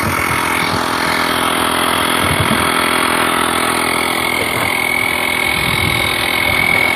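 A 12-volt portable tire inflator runs steadily as it pumps air into a freshly patched tire, a constant mechanical drone with a steady high whine.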